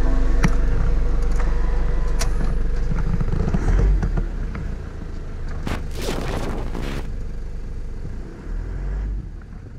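Car being driven, heard from inside the cabin: a steady low engine and road rumble with scattered clicks and rattles, and a louder rushing burst about six seconds in. The sound fades out near the end.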